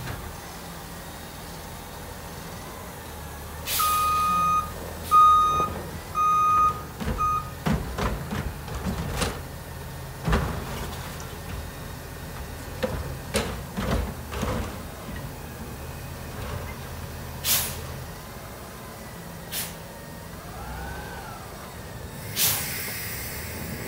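Natural-gas garbage truck running at low speed. Its reversing alarm beeps about five times a few seconds in, then a series of metallic knocks and clanks follows. Near the end there is a burst of air-brake hiss.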